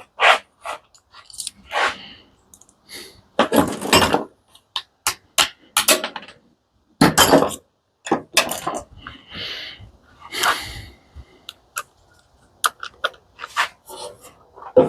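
Irregular clanks, clicks and short scrapes of metal parts and hand tools being handled while an industrial coffee machine is taken apart.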